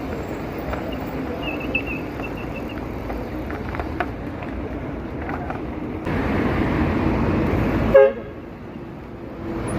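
Steady city traffic noise with a single short, loud horn toot about eight seconds in.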